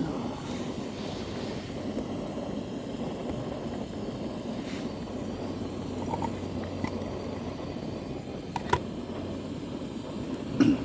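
Portable camping gas stove burner running with a steady rush, with a couple of sharp clicks and a knock near the end.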